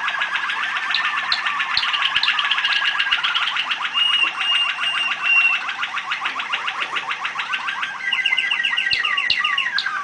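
Caged domestic canary singing a long continuous song of fast rolling trills, with a short run of clear piping notes about four seconds in and a new trill phrase near the end.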